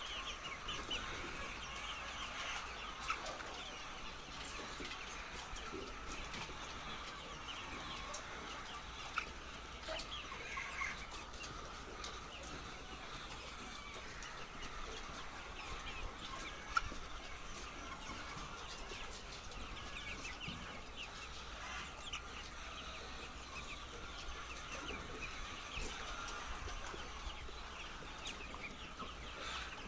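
A large flock of laying hens clucking and calling continuously, a dense overlapping chatter with a few louder calls standing out now and then.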